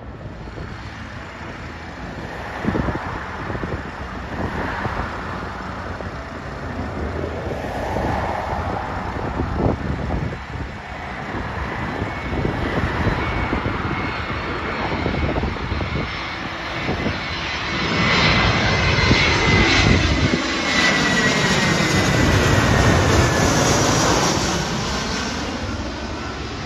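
Twin-engine jet airliner on approach with its landing gear down, flying low overhead: the engine noise swells to its loudest in the second half, with a high whine that drops in pitch as the plane passes, then begins to fade.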